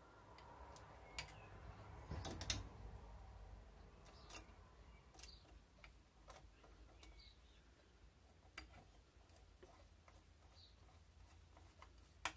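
Faint, sparse clicks and taps of small metal parts being handled: an accessory rail and its screws being fitted by hand onto an air rifle's barrel bands, with a short run of louder clicks about two seconds in.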